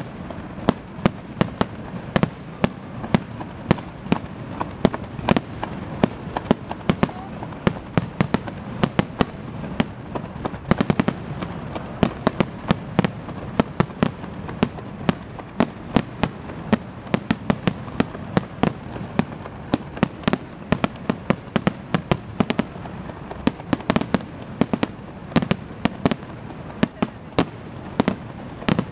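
Aerial firework shells bursting in quick succession: sharp bangs at irregular spacing, a few each second, over a continuous rumble, with a dense flurry of bangs about eleven seconds in.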